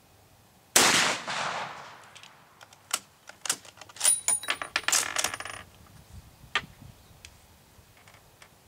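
One shot from an 11x52R Dutch M71/78 Beaumont-Vitali bolt-action rifle about a second in, echoing briefly. Then the bolt is worked, with a string of metallic clicks and clacks and a ringing clink as the spent brass case falls.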